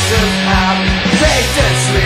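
Loud rock soundtrack music with a steady drum beat and held bass notes.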